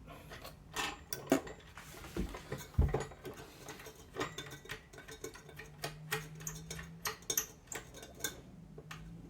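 Small clicks, taps and light rattles of computer hardware being handled, as cooler mounting parts and screws are fitted. A few firmer knocks come in the first three seconds.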